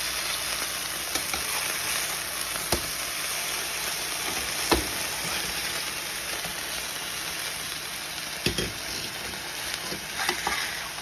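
Ground-beef burger patties sizzling steadily in a frying pan, with a few sharp clicks and knocks of a spatula against the pan as the patties are pressed and moved.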